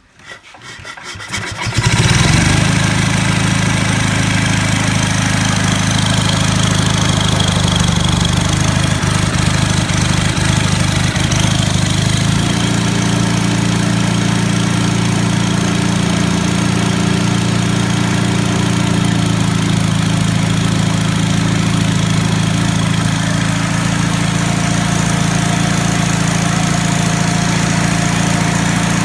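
Onan W2C generator engine starting for the first time after a rebuild: brief cranking, catching about two seconds in, then running steadily. Its tone shifts once around twelve seconds in, then holds steady.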